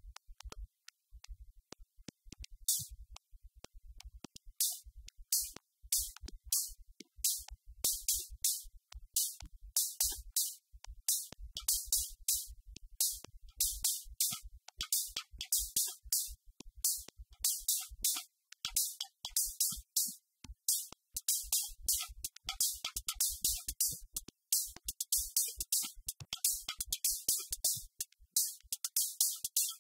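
Roland TR-8S drum machine playing a pattern as it is programmed: a fast low beat, with short bright high ticks joining about three seconds in and repeating densely.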